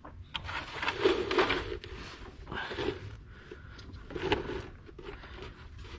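Scraping and rubbing in a few irregular bursts as a rubber drive belt is worked by hand over the engine's pulleys to seat it.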